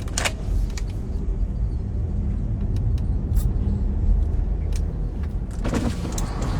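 Steady low rumble of a car's engine and tyres heard from inside the cabin while driving, with a few short clicks.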